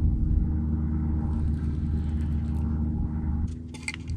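Boat motor humming steadily, dropping away about three and a half seconds in, followed by a few sharp clicks.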